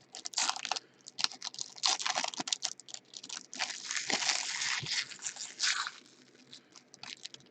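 Trading card packs and cards being handled: foil wrappers crinkling and cards clicking as they are flipped and sorted. The rustling comes in bursts and dies down about six seconds in.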